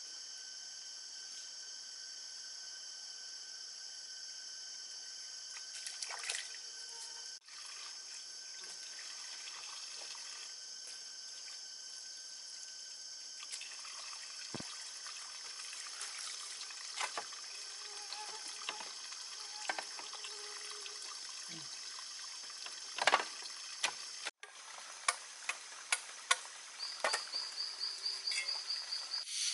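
Steady high-pitched insect chorus of crickets or cicadas, with scattered sharp knocks and taps in the second half and one louder knock about 23 seconds in.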